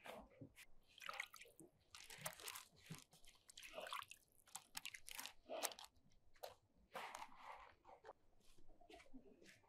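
Faint, irregular wet handling sounds: soft dough pieces dipped in a bowl of liquid, dripping, and set down on a parchment-lined baking tray, with light crinkles of the paper.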